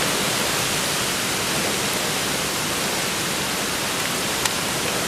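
Intense outflow wind from a supercell thunderstorm, a steady, loud rushing noise. A brief tick sounds once about four and a half seconds in.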